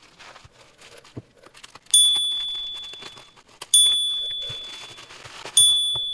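Three bright bell dings about two seconds apart, each ringing out and fading over a second or so: a notification-bell sound effect for the on-screen subscribe-button animation. Faint crinkling of a plastic mailer bag being handled sits beneath.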